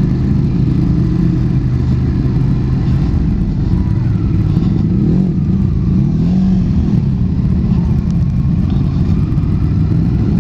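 Motorcycle engine running at low road speed through tight hairpin bends, its note rising and falling in the middle as the throttle is opened and closed.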